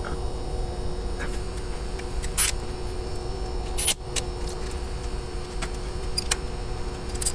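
A few scattered sharp metallic clicks and taps from a socket on a long extension being fitted onto a glow plug deep in a Duramax diesel engine bay, over a steady low background hum.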